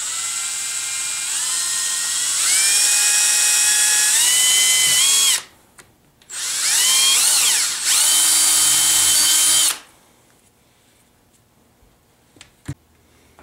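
Cordless drill boring through steel-cored stakes. The motor whine climbs in steps for about five seconds and stops, then runs again for about three and a half seconds with its pitch swinging up and down before cutting off. A few faint clicks come near the end.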